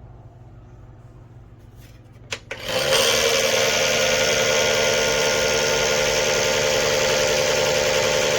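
Two clicks, then a loud, steady electric-motor whir that starts about three seconds in and cuts off abruptly near the end.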